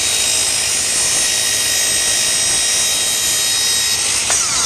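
Powered miter saw running at full speed and cutting a 45-degree angle through a pine board, a loud steady high whine with the blade's noise in the wood. About four seconds in there is a click, and the whine starts to fall in pitch as the saw winds down.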